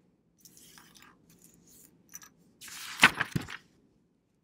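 A paper worksheet being turned over on a desk: light rustling, then a louder crinkle of the sheet about three seconds in, with two sharp taps close together.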